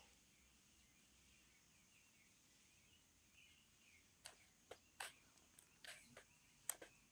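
Quiet outdoor background with faint bird chirps, then a run of about seven faint, sharp clicks in the second half as a kitchen knife taps and scrapes against a cut lime half.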